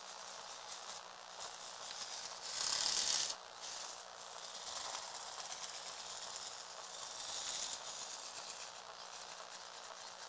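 Lego Technic toy car driving across a wooden floor: its small Tomy gearbox motor and plastic gears whirring with a hissing rattle. There is a brief louder rush about three seconds in and smaller swells later.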